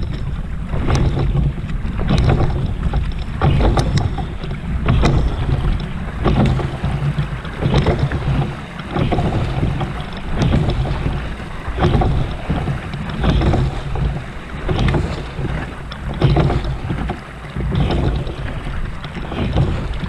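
Oars working in their oarlocks as two men row a boat together: a knock and a swell of water with each stroke, about one stroke every second and a half. Wind on the microphone and water rushing along the hull run underneath.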